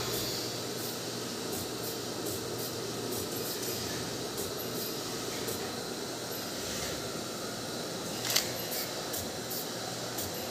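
Asahi 1/3 hp clutch motor for an industrial sewing machine running at speed, a steady hum and whir. A single sharp click about eight seconds in.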